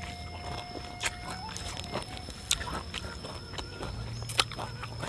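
Chewing a mouthful of raw purple corn kernels, with three separate sharp crunches spread through the chewing.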